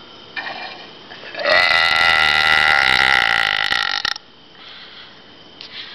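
A young woman's deliberate, loud belch, one long burp lasting about two and a half seconds that cuts off abruptly, with a short fainter sound before it.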